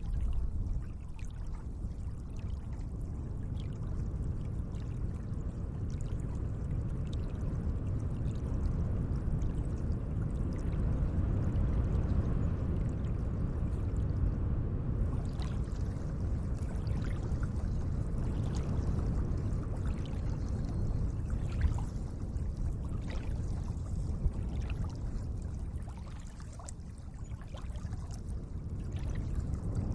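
Gentle lake water: a steady low wash of moving water with small splashes and drips scattered through it, more of them in the second half.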